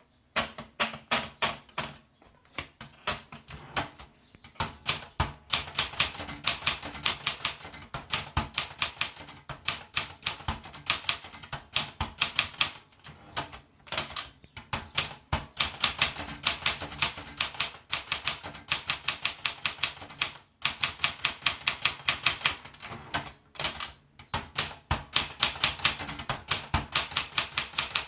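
Unis TBM de Luxe manual typewriter being typed on: quick runs of sharp key strikes, several a second, broken by short pauses.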